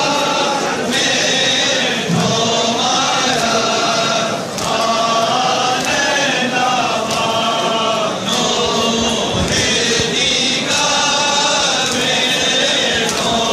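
A large crowd of men chanting a mourning lament together in long held phrases, with sharp strikes sounding through the chant.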